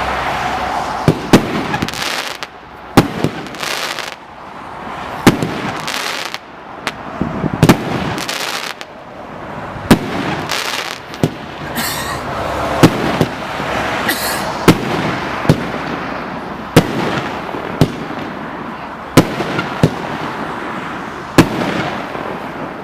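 A 'Silver Scars' firework cake firing its shots one after another, a sharp bang roughly every one to two seconds, with a spell of hissing noise from each shell between the bangs.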